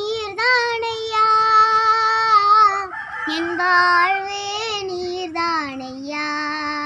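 A young girl singing a Tamil Christian song solo and unaccompanied, holding long notes with a slight waver. There is a short break about three seconds in, and the phrase ends on a long, lower held note.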